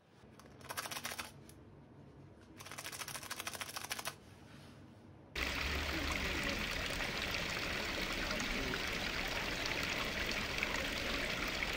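Two short bursts of rapid clicking, then, about five seconds in, steady running water cuts in suddenly and carries on at an even level.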